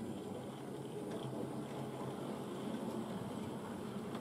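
Model railway goods train running past: the wheels of a rake of small wagons rolling along the track with a steady rumble, and the locomotive's small electric motor running.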